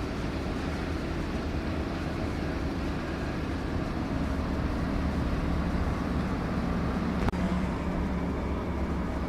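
Steady low engine rumble of heavy machinery running, with a single sharp click about seven seconds in.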